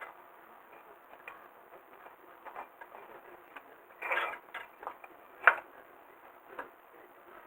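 Irregular light clicks and small knocks of tools being handled, with a louder clatter about four seconds in and a single sharp click about a second later.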